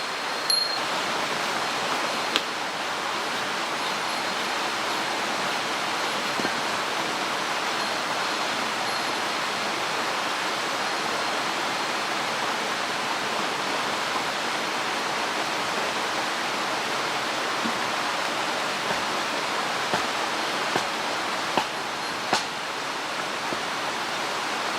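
Mountain stream rushing steadily, with a couple of light knocks over it.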